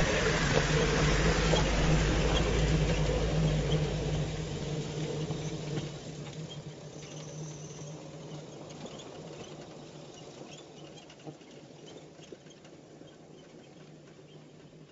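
Jeep driving slowly over rocks, its engine running low and steady with stones clicking and crunching under the tyres. It stays loud for about four seconds, then fades away steadily as it moves off.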